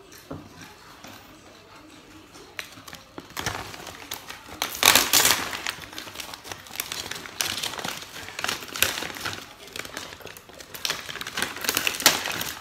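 Clear plastic bag crinkling and rustling as a hand rummages in it for crackers. The rustling starts about three seconds in and comes in loud crackly bursts.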